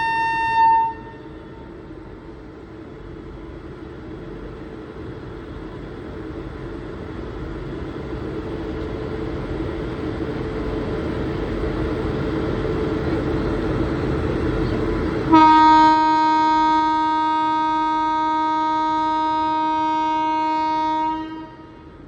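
Indian Railways express train departing. A short horn note at the very start, then the train's rumble grows steadily louder as it gets under way. About 15 seconds in, the locomotive's horn sounds one long, steady full-tone blast of about six seconds.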